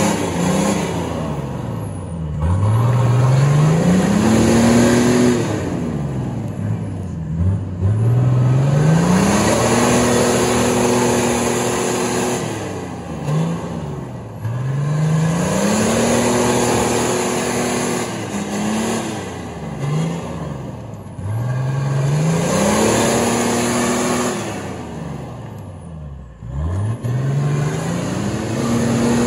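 Nissan Patrol (Y61) engine revved hard about five times, each rev climbing, holding and dropping back, as the 4x4 rocks against a deep mud rut with its wheels spinning. The differential lock is not engaged.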